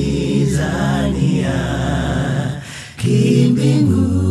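Closing music of unaccompanied voices singing. It fades briefly about two and a half seconds in, then picks up again a moment later.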